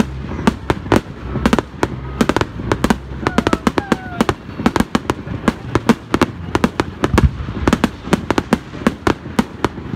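Fireworks display: a rapid, irregular run of bangs and crackles, several a second, from aerial bursts and ground-fired comets going off together.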